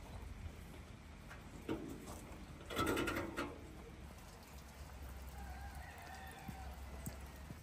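Domestic chickens calling: one short, harsh squawk about three seconds in, then a fainter drawn-out call near the end, over a low steady background rumble.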